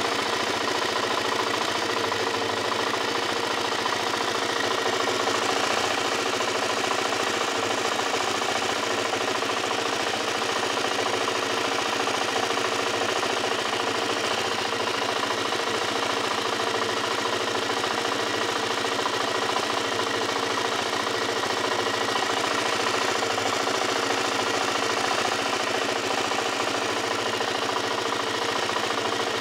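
Suzuki LT-Z400 quad's single-cylinder four-stroke engine running steadily, with a ticking noise in it that the owner is trying to track down.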